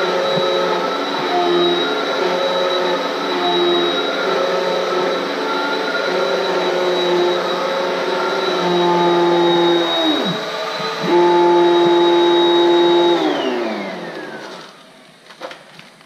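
Upright Hoover vacuum cleaner running on a rug, a steady motor hum with a high whine. About ten seconds in its pitch briefly dips and comes back. About three seconds before the end it is switched off, and the whine falls away over a second or two as the motor winds down.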